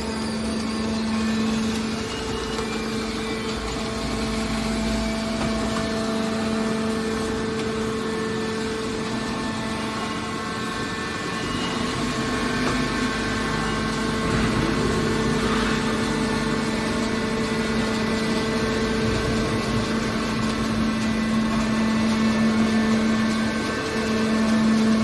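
Scrap metal baler shear's hydraulic power unit running, a steady machine hum with one constant tone.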